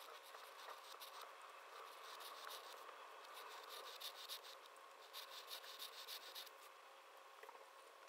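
Metal flex-nib dip pen scratching faintly across paper in quick short strokes, in runs of rapid scratches about two, four and five seconds in. A faint steady hum lies underneath.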